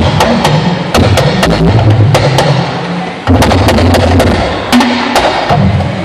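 Hourglass talking drum beaten with a curved stick in rapid, uneven strokes, its low notes stepping up and down in pitch as the player squeezes the drum's tension cords.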